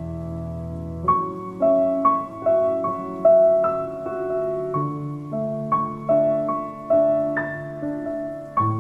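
Slow solo piano music: single melody notes struck about twice a second over long-held low notes.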